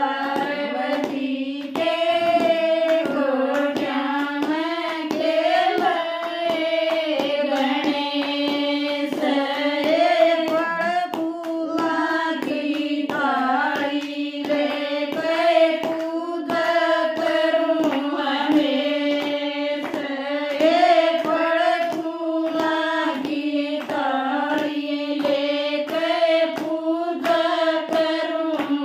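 A group of women singing a Hindi devotional bhajan together, with a steady beat of hand clapping throughout.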